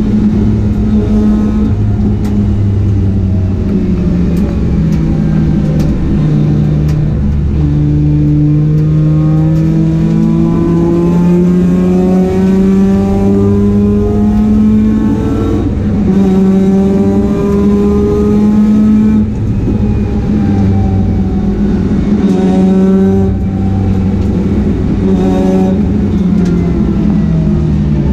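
Mazda RX-8 race car's twin-rotor rotary engine at full throttle on track, its pitch climbing steadily through each gear and dropping sharply at each upshift: one long pull through a gear, then several quicker shifts in the second half.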